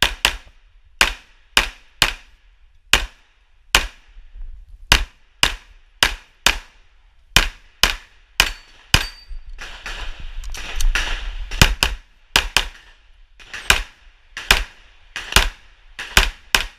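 Imbel MD1 9mm pistol fired as a rapid string of about two dozen shots, mostly in quick pairs about half a second apart, with brief pauses between groups while the shooter moves between targets through a practical-shooting stage.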